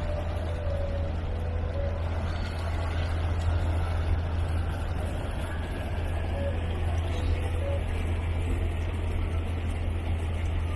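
A vehicle on the move: a steady low drone with an even rushing noise over it.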